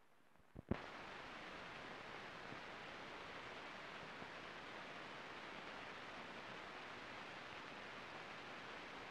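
Steady, even hiss of an old film soundtrack's noise floor, with no other sound in it, set off by two short clicks at a splice about half a second in.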